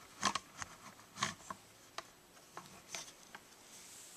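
Camera handling noise as the camera is lowered and repositioned: a series of irregular small clicks, knocks and rubbing sounds.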